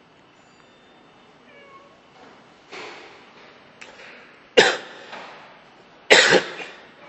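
Recorded cat calls played by an interactive wild-cat touchscreen exhibit: a softer harsh call a little before the middle, then two loud, harsh, sudden calls about a second and a half apart.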